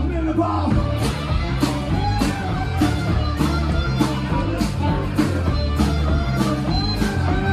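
Live rock band playing a song, with a steady drum beat, bass guitar and guitar.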